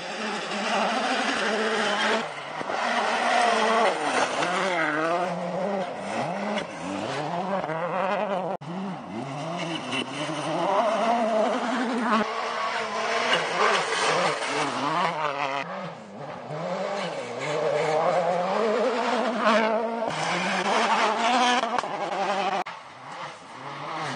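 World Rally Car engines, 1.6-litre turbocharged four-cylinders, revving hard as the cars approach and pass on a gravel stage. The pitch keeps climbing and dropping with each gear change and lift, with brief dips in loudness.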